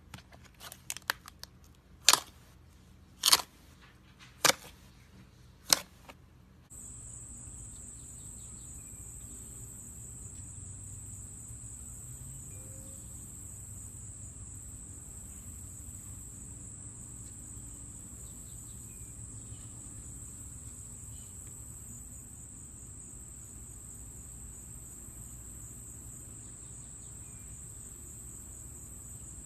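A handful of sharp, separate pops, typical of air pockets bursting as slime is poked and pressed. After about seven seconds a steady high-pitched whine with a low hum under it sets in and holds.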